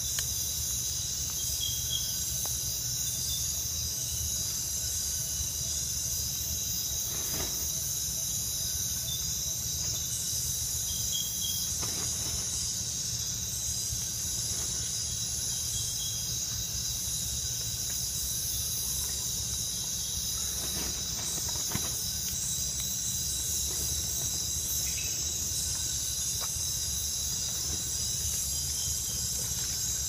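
Steady high-pitched chorus of night insects such as crickets, over a low steady hum, with a few faint clicks.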